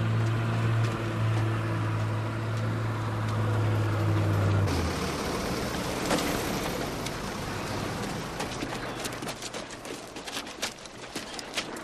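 Vehicle engine running with a steady low drone that cuts off about five seconds in. Then the rustle and commotion of troops getting down from a truck, with boots on gravel giving quick, irregular footfalls and knocks that grow busier near the end.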